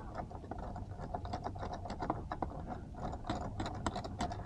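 Hand ratchet clicking in quick, irregular runs as it is worked back and forth on a fastener in the engine bay.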